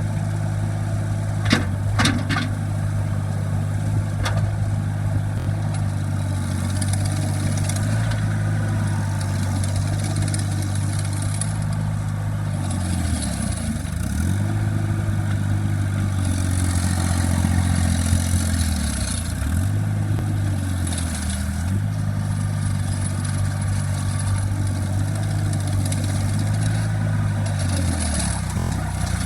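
ASV RC-30 compact track loader's diesel engine running steadily, its speed briefly dropping and recovering about four times, a few sharp clicks or knocks in the first few seconds, and a hiss that comes and goes.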